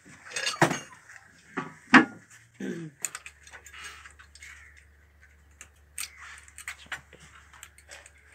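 Metal clinks and taps of fittings and tools being handled on an old stationary diesel engine, with a sharp knock about two seconds in. A faint steady low hum starts about three seconds in.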